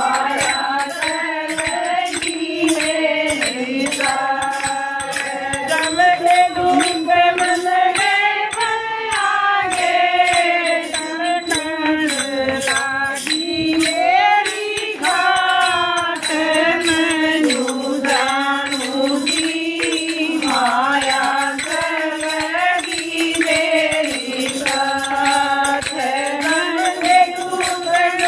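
Women singing a devotional bhajan together, a melodic chant that rises and falls. A kartal, hand-held wooden clappers with small metal jingles, keeps a steady, rhythmic jingling clack.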